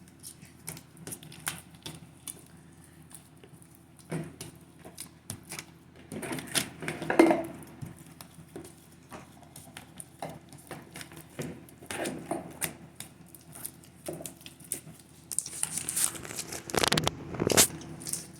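Homemade glue slime being folded and kneaded by hand: irregular sticky squishing, crackling and tearing sounds as it is pulled and pressed, with a few louder bursts.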